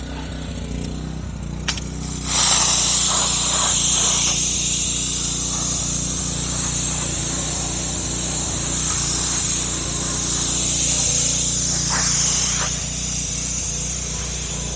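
Pressure washer running with a steady hum. After a click about two seconds in, water starts hissing from the jets of a 16-inch wheeled undercarriage cleaner as it is pushed under a car, and the spray keeps going steadily.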